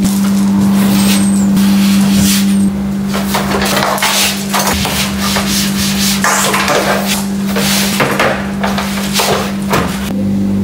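A loud, steady low hum, with irregular rustling and rubbing handling noises joining it from about three seconds in.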